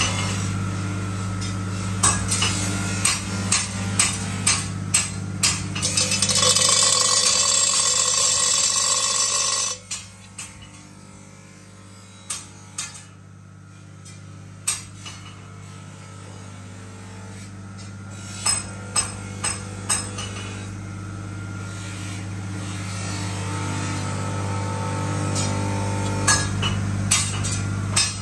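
Hammer blows on steel at the forge, a run of strikes about two a second, then scattered single strikes and short runs, over a steady low hum. A loud steady noise lasts about four seconds after the first run of blows and stops abruptly.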